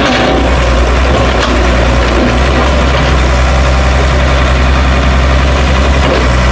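Diesel engine of a Tata Hitachi EX200LC crawler excavator running steadily as the machine digs, a loud, even, low drone that does not rise or fall.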